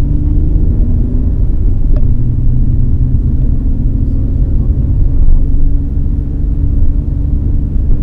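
Nissan Skyline GT-R (BNR32) with its RB26DETT twin-turbo straight-six engine on the move: a steady, loud low rumble of engine and road noise.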